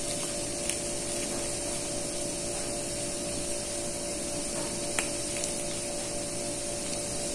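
Steady machine hum and hiss, holding one level throughout, with a faint click near the start and a sharper one about five seconds in.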